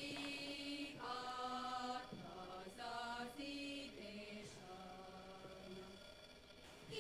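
Faint background singing of a slow folk tune in long held notes, each about a second, moving stepwise from one pitch to the next.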